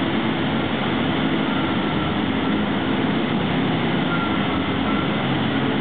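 Diesel engine of the Möbius Aquadigger 2 pontoon excavator running steadily as it moves its boom and bucket, with a faint high whine coming and going.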